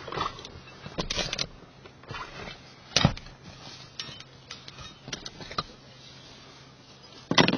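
Clinks and rattles of a ratchet tie-down strap's metal buckle being handled in a truck's back seat, in a string of uneven clicks and knocks. The loudest comes about three seconds in and another just before the end.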